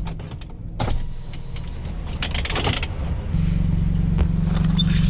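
Car engine idling, heard inside the cabin: a steady low hum that grows louder about three seconds in. Over it comes a brief thin high squeak, then crinkly rustling as a paper tissue is handled.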